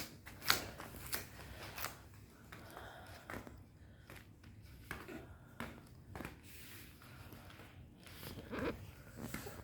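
Faint scattered clicks and rustling, the sharpest about half a second in, with a short soft voice sound about eight and a half seconds in.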